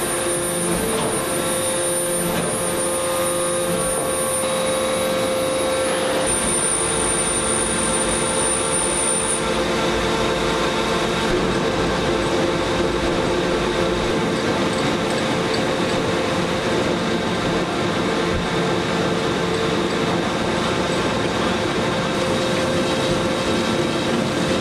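Four-hammer radial forging machine running as it forges a hot titanium bar: a steady, dense mechanical noise with a steady hum. A high whine is heard over it for the first nine seconds or so.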